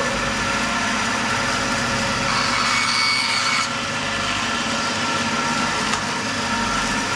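Power saw motor running steadily while cutting a length of 3/4-inch PEX tubing into shim pieces.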